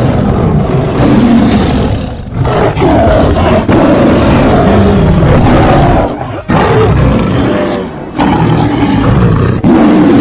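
Big-cat creature sound effects: a string of loud, rough roars and growls, several in a row with short breaks between them.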